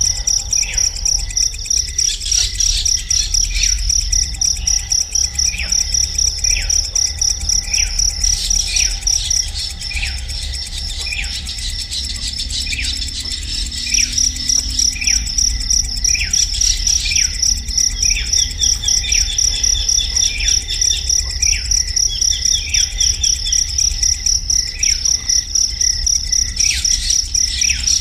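An insect's rapid, high-pitched pulsing trill that breaks off for a few seconds near the middle and then resumes. Over it, a bird gives short falling chirps about once a second, with a brief faster trill of notes a little past halfway.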